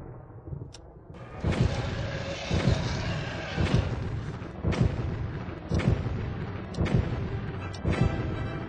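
Dramatic movie-style soundtrack of heavy deep booms, about one a second, over a continuous rumbling background.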